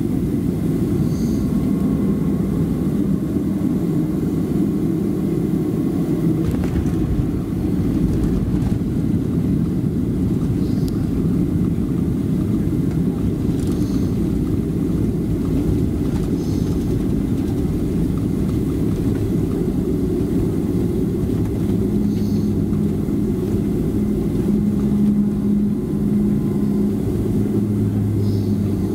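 Steady low rumble inside the cabin of a Boeing 737-300, from its CFM56-3 engines and airflow. About two-thirds of the way through, a stronger engine hum comes in, joined near the end by a deeper one.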